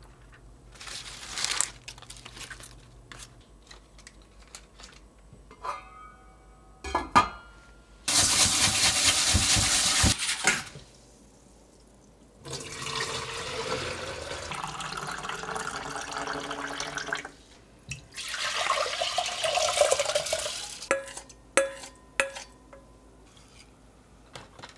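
Kitchen tap water running hard into a stainless steel bowl for about two seconds, then rice being swished and rinsed in the water for several seconds, followed by more water sloshing and light clinks of utensils and dishes near the end.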